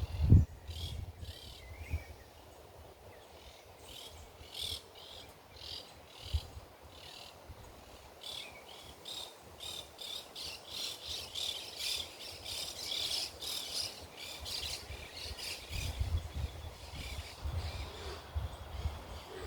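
Birds chirping in quick, repeated high notes, busiest in the middle, with wind rumbling on the microphone at the start and again near the end.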